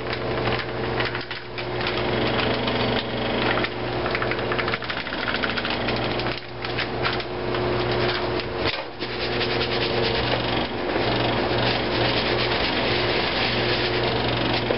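Walleye pieces being tossed and shaken in dry fish fry breading in a plastic bowl, making a continuous rough rubbing and rasping with two brief pauses. A steady low hum runs underneath.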